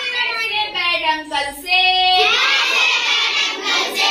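A group of schoolchildren singing a Hindi rhyme together in unison, holding one note briefly about two seconds in.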